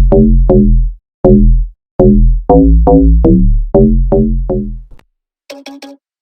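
Electronic music: a drum-machine beat under a quick run of pitched synth notes with deep bass. The run breaks off about five seconds in, and short choppy stabs follow.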